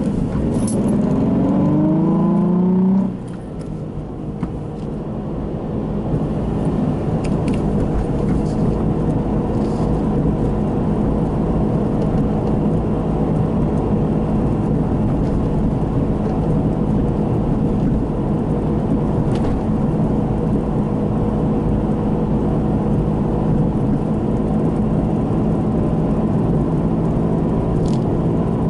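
Nissan Fairlady Z33 on the move. Its VQ35DE V6 revs up briefly and drops off at about three seconds, then the car cruises with a steady drone over the road noise: the noise of worn hub bearings.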